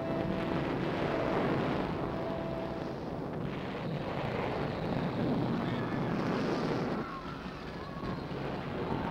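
Film sound effect of a volcano erupting: a loud, dense rushing rumble, with a few held notes of the music score fading out in the first seconds.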